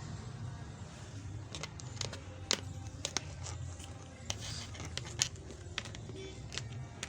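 Scattered small clicks and taps of a plastic Paytm soundbox being handled, over a low steady hum.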